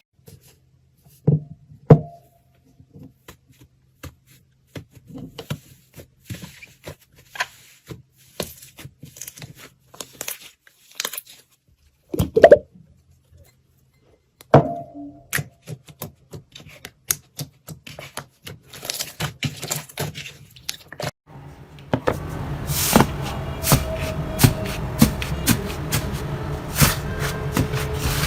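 Slime being squeezed and pressed by hand: irregular sticky clicks and wet pops with a few short squeaks. Near the end the clicking thickens over a steady low hum.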